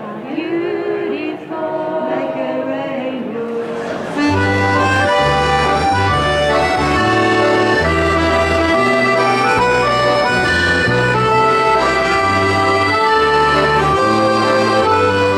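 A women's vocal group singing a cappella, cut off suddenly about four seconds in by an ensemble of accordions playing a tune over a moving bass line.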